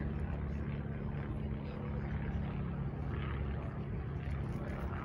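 Steady low engine hum, even in pitch, over light open-air background noise.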